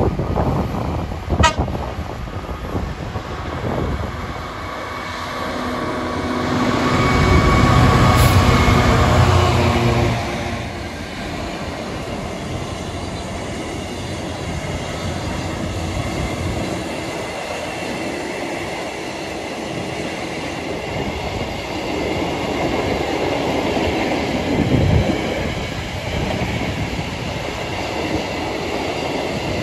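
A diesel freight locomotive runs past, loudest about six to ten seconds in, its engine note dropping as it goes by. A long string of flat wagons follows, rumbling and clattering over the rails, with a couple of heavier knocks near the end.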